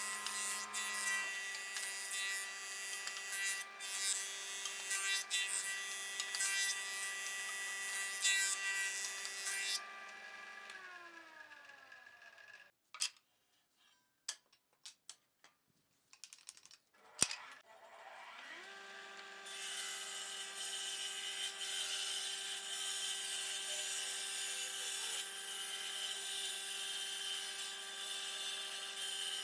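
An electric power tool working wood, its motor running steadily under the hiss of the cut. About a third of the way in the motor winds down and stops, and a few clicks and knocks come in the quiet. Then the motor spins back up and work on the wood resumes.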